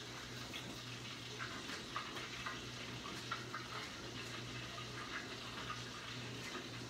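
Chicken tenders frying in hot cooking oil: a steady sizzle with many small scattered pops and crackles, over a low steady hum.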